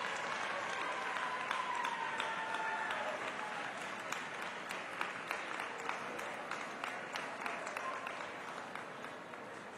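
Ringside audience applauding, a dense patter of clapping that slowly grows quieter.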